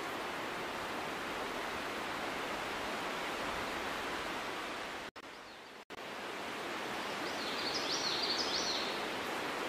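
Steady outdoor ambient hiss that briefly cuts out about five seconds in. A bird chirps a quick run of high notes near the end.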